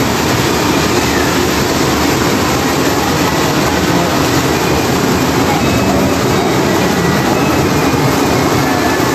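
Model trains running on the layout's track, making a steady rolling noise of wheels on rails.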